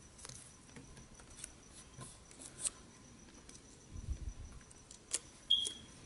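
Faint small clicks and taps of fingers handling plastic parts, connectors and a ribbon cable inside an opened laptop, with a few low bumps about four seconds in and a short high squeak near the end.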